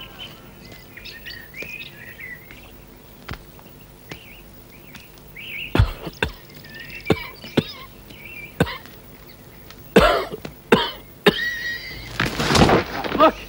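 A man coughing harshly in fits, a single cough about six seconds in, then heavier coughing near the end, with the longest fit just before the end. Small birds chirp in the background, mostly in the first half.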